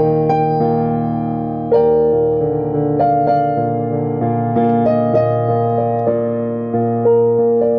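Digital piano played with both hands: a slow melody of struck notes, each left to ring and fade over held lower notes and chords.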